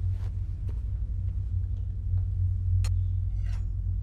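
A steady low rumble, with a few faint clicks and a brief scrape or rustle about three and a half seconds in.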